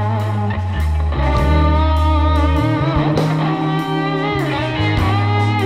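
Live rock band playing an instrumental passage: an electric guitar lead with bending, sliding notes over bass guitar and drums.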